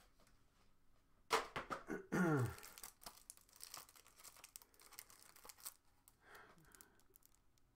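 Plastic and paper packaging crinkling and tearing as a small package is opened by hand, in irregular crackles, with a brief sound sliding down in pitch about two seconds in.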